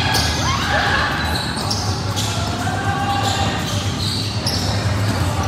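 Indoor volleyball being played in a gym: the ball is struck about four times, each hit sharp and echoing in the hall, over a steady low hum.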